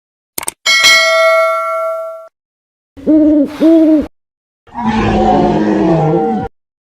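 A string of separate comedy sound effects: a couple of quick clicks, then a bell-like ding that rings for about a second and a half and cuts off suddenly, then two short hooting notes, then a longer, noisier sound with a wavering pitch.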